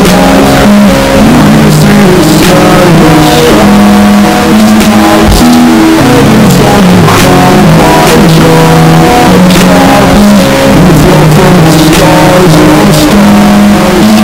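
Slowed-down, reverb-drenched hip-hop song playing: sustained melodic notes moving in steps over a steady beat.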